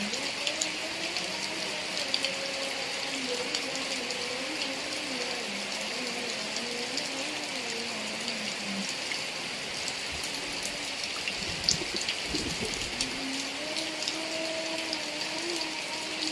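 Steady heavy rain, with many close drops ticking, over a low wavering hum that fades out about nine seconds in and comes back near the end. A low rumble rises and falls a few seconds after the hum drops away.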